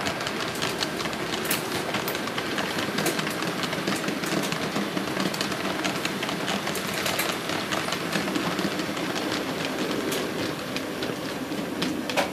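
HO scale model trains running on a Märklin layout: a continuous rattle of small wheels on metal track, with many sharp little clicks.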